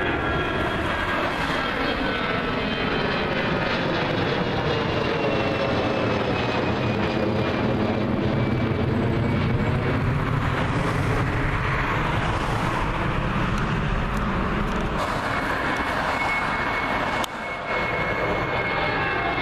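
Twin-engine jet airliner climbing out low overhead: loud, steady engine noise with a high whine that slowly falls in pitch as it passes and moves away.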